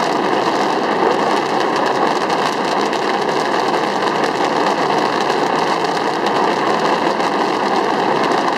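A dense fireworks barrage fired off a skyscraper, its many reports running together into a steady crackling rumble with no single bang standing out.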